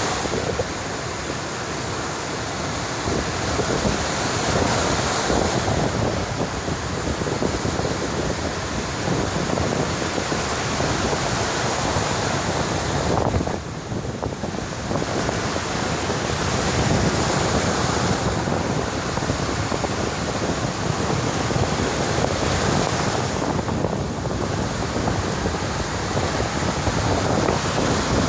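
Sea waves breaking on the shore in a storm, with strong wind buffeting the microphone. The surf noise dips briefly about halfway through.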